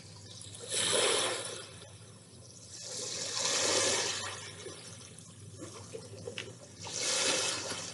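Ocean waves from a recording of the sea: three swells of surf washing in and falling away, a few seconds apart.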